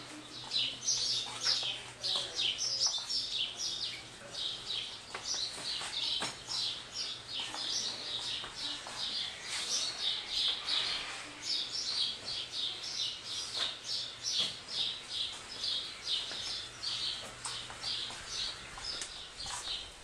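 Small birds chirping continuously: many short, high chirps, several a second, overlapping as from a few birds at once.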